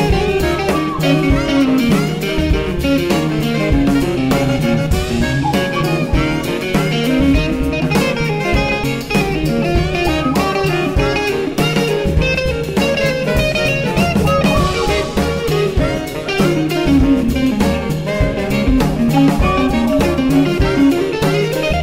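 Jazz played by a seven-piece band: a moving melodic line over a drum kit keeping steady time.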